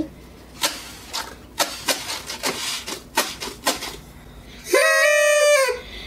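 Paper party blowers (noisemakers) being blown: a few short, breathy puffs first, then near the end one loud, steady buzzing toot of about a second that sags in pitch as it stops.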